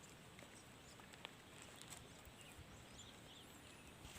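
Near silence: faint outdoor background with a soft click about a second in.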